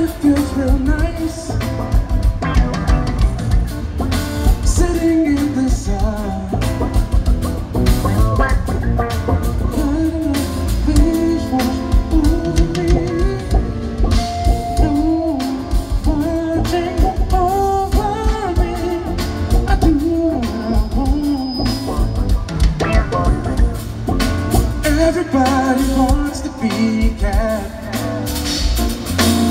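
Live band music: a male voice singing over electric bass, keyboards and drum kit.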